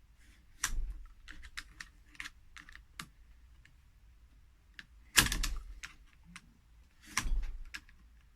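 Plastic laptop battery case being pried open with an X-Acto knife: a run of small clicks and ticks, then two louder cracks about five and seven seconds in.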